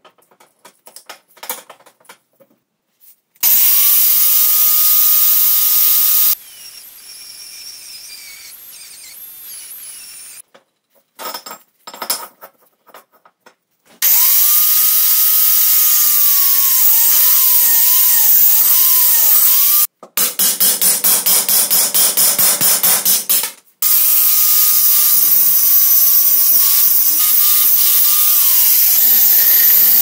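Angle grinder with a thin cut-off disc cutting through steel plate, in several loud stretches. Its motor whine dips and wavers as the disc bites. Between cuts there are light clicks of the steel being handled, and for a few seconds the sound stutters rapidly, several pulses a second.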